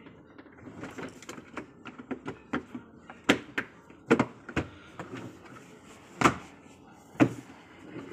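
Hard plastic knocking and clicking as a plastic chest of drawers is pressed together and handled during assembly. A run of light clicks gives way to about five loud knocks.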